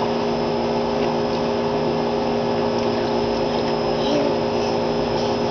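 Steady hum of a pump motor, a few even tones held without change, over an even rush of water.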